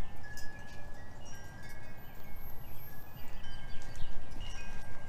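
Wind chimes ringing, several steady tones overlapping and fading in and out, over a low, steady background rumble, with a few faint clicks.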